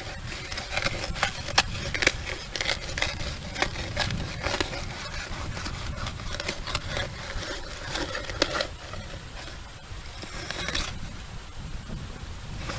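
A digging tool cutting and scraping into wet, packed beach sand, with many quick crunching, scraping strokes that thin out about two thirds of the way through, as a deep metal-detector target is dug out.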